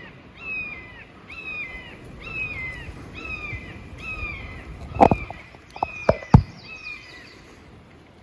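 A songbird sings a long run of repeated falling notes, about two a second. A few sharp knocks, the loudest sounds, come about five to six and a half seconds in.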